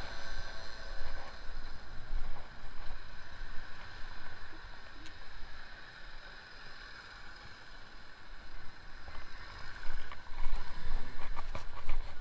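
Street ambience picked up by a handheld action camera while walking: a steady low rumble of wind and distant traffic on the microphone, with a cluster of short knocks and bumps in the last couple of seconds.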